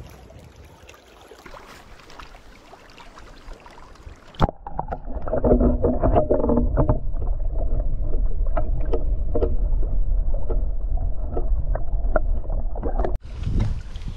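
Small waves and wind at a rocky lake shore. About four seconds in, the sound changes to lake water heard through a submerged microphone: a muffled low rumble with many small clicks and knocks. Shortly before the end the microphone comes out of the water and the open-air sound of the waves and wind returns.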